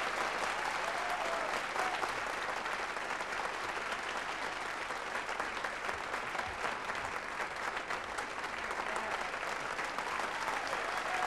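Theatre audience applauding: steady, dense hand-clapping at the end of a song.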